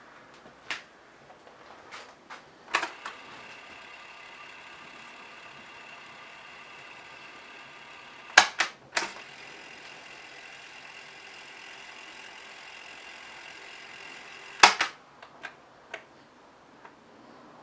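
Tascam Portastudio 414 MK II cassette transport keys clunking, and the tape mechanism whirring steadily as it winds the cassette at high speed. It runs twice for about five seconds, each run started and stopped by a key press, followed by a few lighter clicks.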